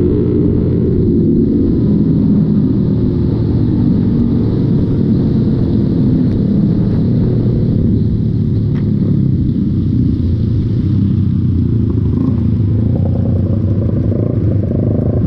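Motorcycle engine running at a steady pace while riding, with a dense low rumble of road and wind noise.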